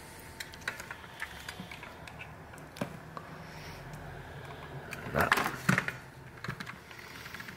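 The plastic housing of a Blue Gizmo BG32 infrared thermometer being handled and pried at by hand: scattered light clicks and plastic creaks, with a louder crackling, creaking cluster about five seconds in. The case is not coming apart, likely because it is glued.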